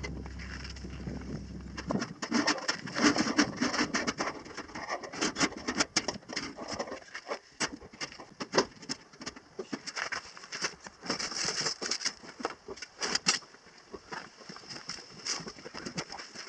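Irregular clicking, knocking and rustling of camping gear being handled and set up. A low steady hum cuts off about two seconds in.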